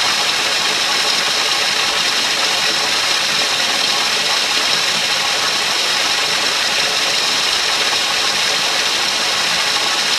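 Loud, steady hissing noise, unchanging, with no pitch, rhythm or breaks.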